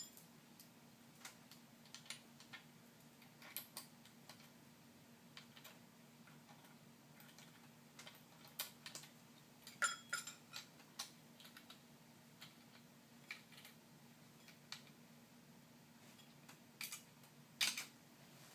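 Light metallic clicks and clinks of small hardware and a hand tool at irregular intervals, as the nuts holding a steering wheel to its hub adapter are tightened. A few quick clusters of clicks stand out about halfway through and near the end, over a faint steady hum.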